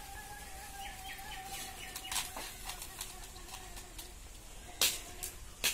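Birds calling outdoors: a held whistle-like note and a quick run of about six short chirps about a second in. Sharp metal clinks, the loudest near the end, fit a steel ladle knocking on the steel serving pot.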